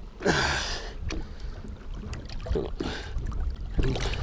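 Lake water sloshing and splashing against the side of a boat as a muskellunge is held at the surface by hand, with a louder rush of noise about half a second in and a few softer splashes after.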